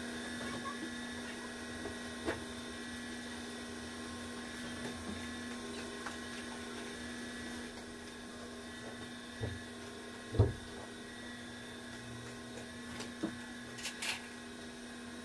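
A steady machine hum under light taps and scrapes of a pastry brush against a plate and a baking pan as condensed milk is brushed on, with one sharper knock about ten seconds in.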